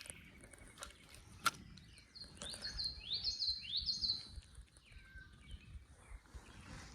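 A songbird singing a quick run of high, repeated chirped notes for about two seconds, starting a little over two seconds in. A single sharp click comes just before it.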